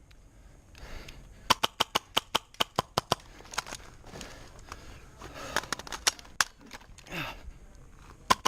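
Airsoft gun firing in rapid strings of sharp clicks, about eight shots a second. A burst lasts from about a second and a half in to about three seconds, with a few more scattered shots later.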